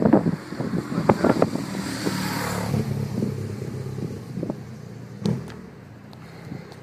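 A motor vehicle drives past on the road, its engine and tyre noise swelling about two seconds in and then fading away. A single sharp click comes about five seconds in.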